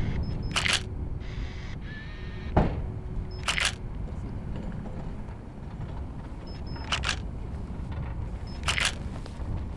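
DSLR camera shutter firing four times across a few seconds, each a quick double click preceded by a short high beep, over a steady low outdoor rumble. A single thump sounds about two and a half seconds in.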